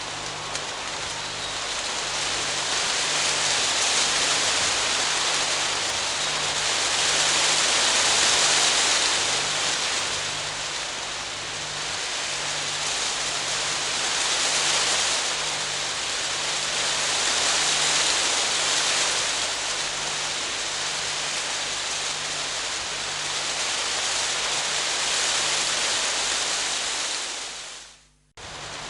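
Rain falling on a tent: a dense, steady patter of drops on the fabric that swells and eases every few seconds. It cuts out briefly near the end and then resumes.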